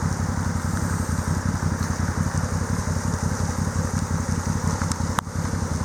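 Engine running steadily at idle with a fast low pulse, over an even hiss of rushing water; two short clicks near the end.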